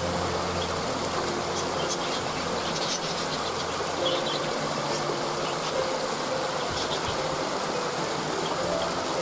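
Waterfall rushing steadily, with short high bird chirps scattered through it and low held tones underneath.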